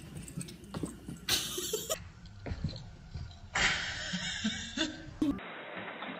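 A person laughing in breathy bursts, once about a second in and again, longer, a little past the middle.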